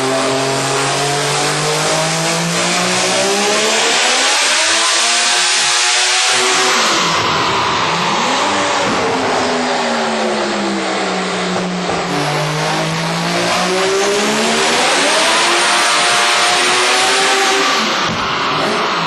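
Mazda 20B three-rotor rotary engine run hard on a chassis dyno: it revs smoothly up to high rpm and winds slowly back down, twice.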